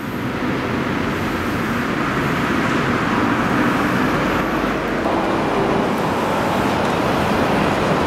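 Steady city road traffic noise from cars and other vehicles passing on a multi-lane street.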